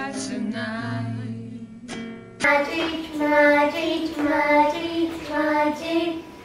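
A woman's singing voice holds out the last line of a slow song and fades away about two seconds in. After a short gap, children's singing starts abruptly and goes on in short, evenly repeated phrases.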